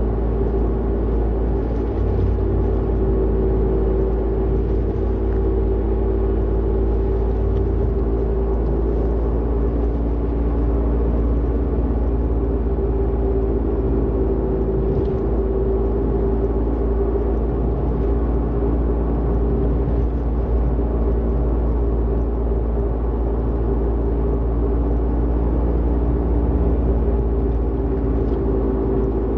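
Toyota Vitz (NCP13) driving at a steady speed with a steady droning rumble and hum from a worn wheel hub bearing, the loud 'gooo' noise it makes on the road.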